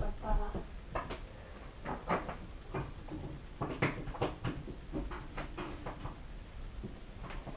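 Scattered light knocks and clicks, irregular and spaced about half a second to a second apart, from objects being handled and moved about in a room, as when someone rummages through cupboards.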